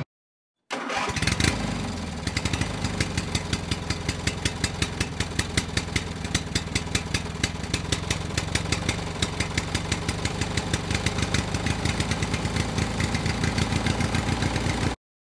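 Motorcycle engine starting about a second in, then idling with a steady, rapid, even pulse until it cuts off abruptly near the end.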